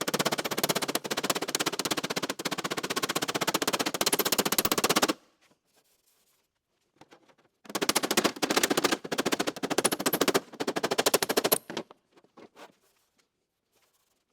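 Steel door skin of a Model A Ford being hammered down onto the door frame. The strikes come in very fast runs: one of about five seconds, then after a pause of about two and a half seconds a second run of about four seconds, broken briefly in the middle.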